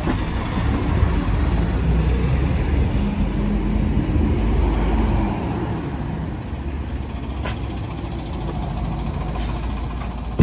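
Road traffic on a city street: a steady low rumble of engines that swells about a second in and eases after about five seconds.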